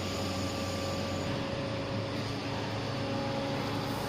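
Steady machinery hum with an even hiss, with no separate knocks or clicks.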